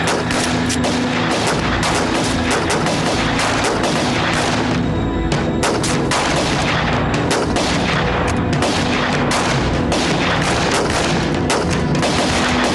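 Rifle gunfire in a battle, many shots in quick, overlapping succession, with a film score underneath.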